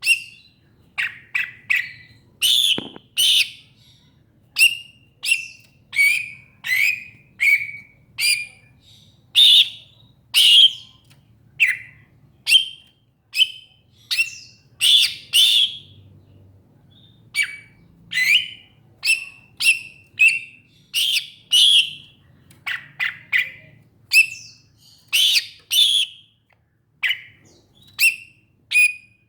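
A green leafbird (cucak ijo) giving a long run of short, sharp whistled chirps, about one or two a second, with a brief pause about halfway through.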